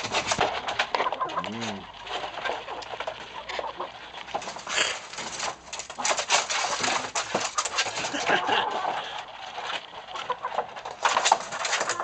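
Chickens making low clucking and crooning calls, including one low call that rises and falls in pitch about a second and a half in, over many short clicks and rustles.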